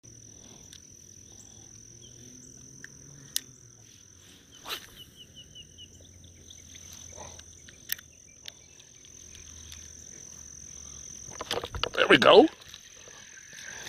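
Pondside ambience: a steady high-pitched insect drone with a few scattered clicks and a short rapid trill of calls, then a loud burst of sound near the end.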